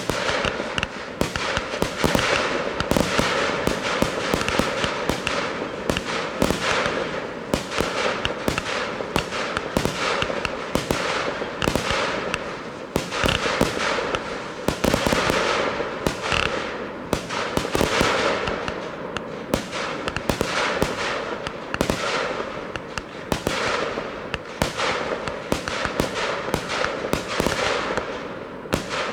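Professional fireworks display: an unbroken run of shell bursts and crackling, several bangs a second throughout.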